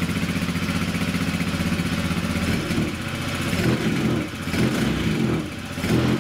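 Honda Vision 110 scooter's single-cylinder four-stroke engine idling, then revved up several times with the throttle, with the bench it stands on rattling. It revs up freely rather than refusing to rev, the sign that the engine-management fault is cured after the sensor was replaced and reset.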